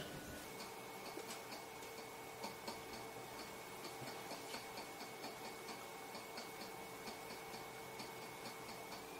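Slime being stretched and pulled by hand, giving a run of small, soft clicks and pops, about four or five a second at uneven spacing. A faint steady hum runs underneath.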